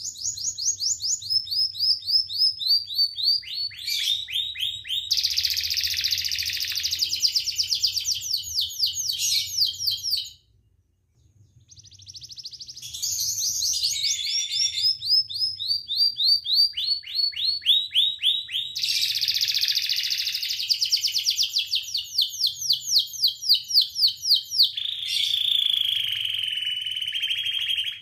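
Orange domestic canary singing: two long song phrases of rapid trills that step down in pitch, with a pause of about a second midway.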